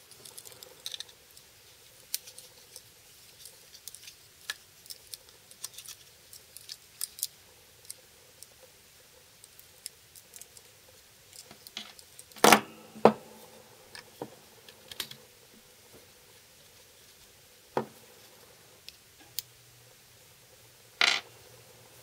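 Scattered small metallic clicks and taps as an Enlan EL-01 folding knife is taken apart with a pocket-knife screwdriver, its screws and parts handled on a wooden bench. A few louder knocks come about halfway through and again near the end.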